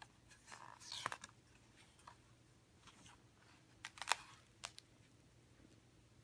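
Faint handling noises of a hardcover picture book: a few soft rustles and taps, the loudest about a second in and a cluster about four seconds in, as the book is closed and laid down.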